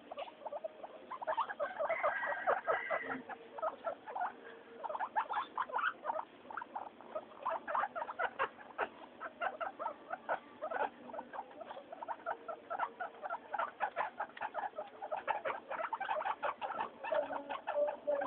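Guinea pigs making a rapid, almost continuous run of short squeaks and chattering calls.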